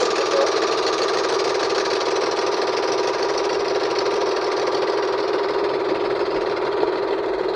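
Engine of a bangka (outrigger boat) running steadily, heard close up on board.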